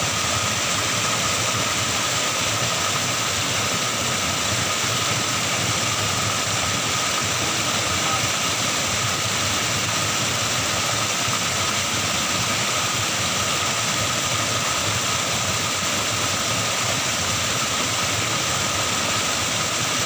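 Small waterfall pouring into a flooded, muddy stream: a steady, even rush of water.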